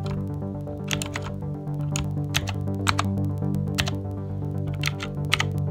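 Clicky blue-switch key presses on a mechanical keyboard: a series of sharp, irregular clicks as keys are pressed one after another, over steady background music.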